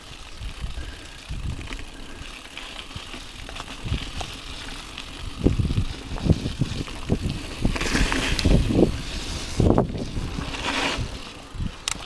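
Mountain bike rolling over a rough dirt trail: tyre noise with frequent knocks and jolts as the bike hits bumps, heavier and louder from about halfway through.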